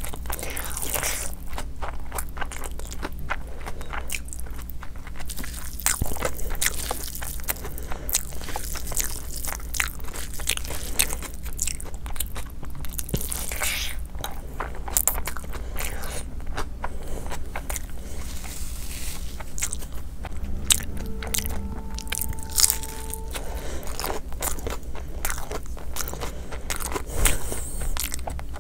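Close-miked mouth sounds of a person eating by hand: chewing, wet smacking and crunching bites, with frequent irregular clicks. A faint steady tone sounds for about three seconds roughly two-thirds of the way through.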